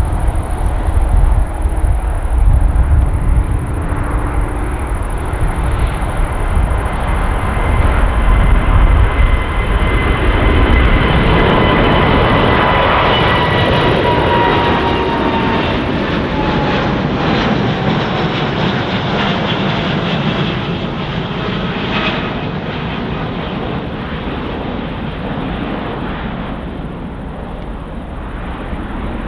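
Boeing 787-9 Dreamliner jet passing by. The engine rumble grows loudest about a third of the way in, while its whining tones slide down in pitch as it goes past, then slowly fades.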